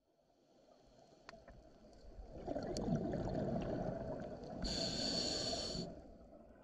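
Scuba diver breathing through a regulator underwater: a rough rumble of exhaled bubbles, then a hiss of inhalation through the regulator lasting about a second, starting a little before the fifth second. A few faint clicks come before the breathing.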